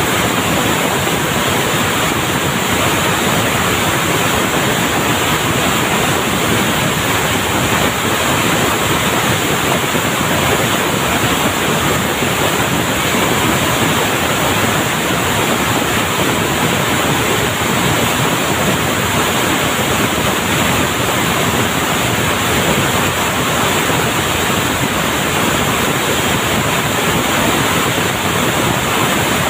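Loud, steady din of textile mill machinery: an even rushing noise with no distinct beats and no breaks.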